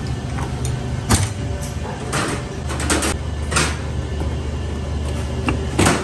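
Steady low machine hum with irregular scrapes and knocks, about five of them, the loudest near the end.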